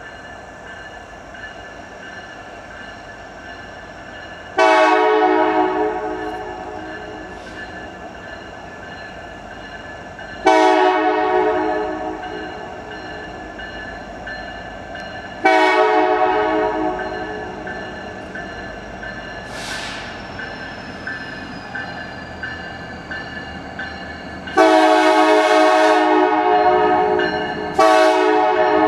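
Nathan K5LLA five-chime air horn on an approaching SD70ACe diesel locomotive sounding a series of blasts: three single blasts about five seconds apart, then a longer blast and another close behind it near the end. Between the blasts the approaching train rumbles steadily.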